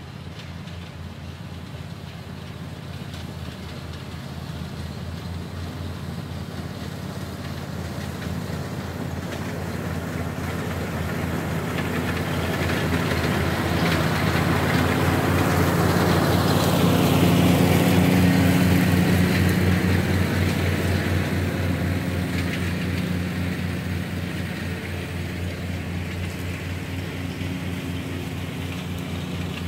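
A vehicle engine running with a steady low throb. It grows louder for about eighteen seconds and then fades, and a whine falls in pitch as it passes its loudest: a vehicle going by.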